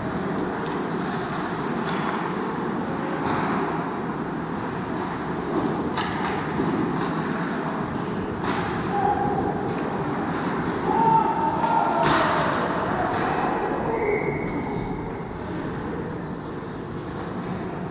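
Ice hockey game in a rink: steady arena noise with sharp knocks of sticks and puck every few seconds, the loudest about twelve seconds in.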